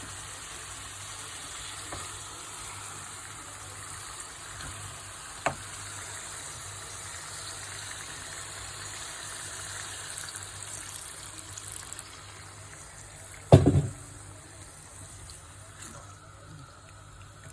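Chicken cooking with a steady sizzle that gets quieter after about twelve seconds. A sharp knock comes about five seconds in, and a louder clatter near fourteen seconds.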